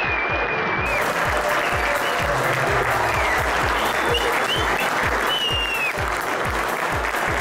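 Audience applauding over background music with a steady bass beat, about two beats a second.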